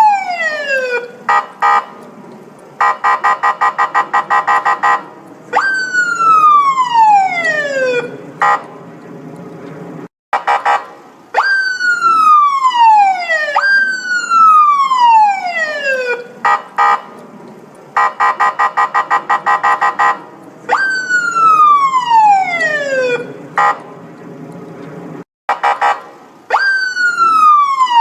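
Police siren sounding in a repeating cycle: a wail that jumps up and then falls slowly over a couple of seconds, alternating with bursts of a rapid pulsing tone. There is a brief break about ten seconds in and again near the end.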